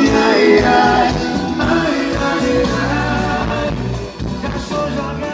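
A Portuguese-language song with singing and a heavy bass line, slowly fading in the second half.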